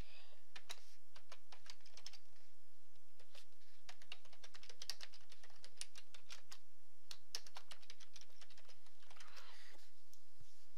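Typing on a computer keyboard: a quick, irregular run of key clicks with short pauses between bursts.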